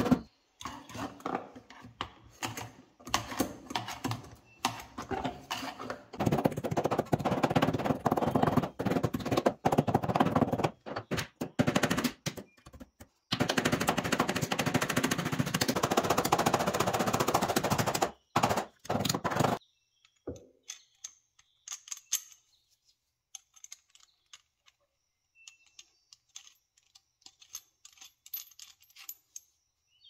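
Rapid hammer taps on a metal flange being set around a hole in a wooden ice box, coming in quick runs with short pauses. About twenty seconds in the hammering stops, leaving only faint clicks of a brass tap being handled and fitted.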